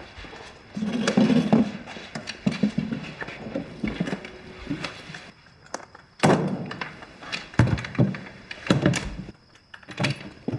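A series of thuds and knocks: wooden chairs and shoes landing on a wooden table as feet are swung up onto it.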